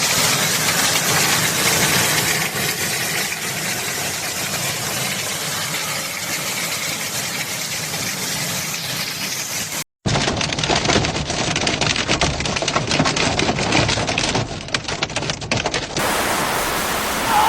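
Hailstorm: a steady heavy hiss of hail and rain pouring down, then, after an abrupt cut, a dense clatter of many separate hailstone impacts on hard surfaces.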